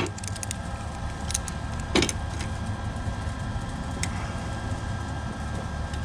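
Light metallic clinks of hand tools as vice grips are shifted on a mower blade spindle: a few just at the start and a sharper one about two seconds in, over a steady low hum.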